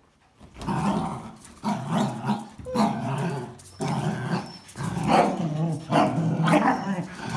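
Dogs growling as they tug on a towel in their mouths: rough growls of about a second each, one after another with short breaks, starting just after half a second in.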